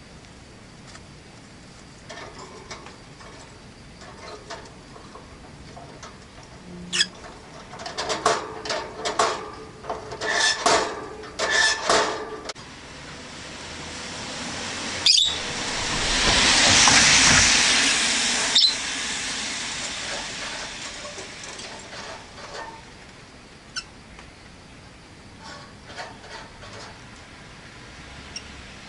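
Rosy-faced lovebirds chirping in quick sharp bursts, clustered in the first half. Midway a vehicle passes by outside, its sound swelling to its loudest and then fading away over several seconds, with a few more scattered chirps afterwards.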